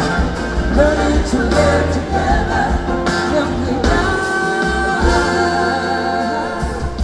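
Live rock band: a woman sings lead over electric guitar, bass and drums, moving to long held notes about four seconds in.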